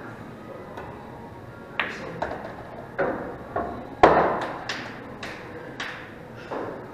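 Sharp clicks and knocks of pool balls and cue on a pool table: a string of separate hits about half a second apart, the loudest about four seconds in with a short ring.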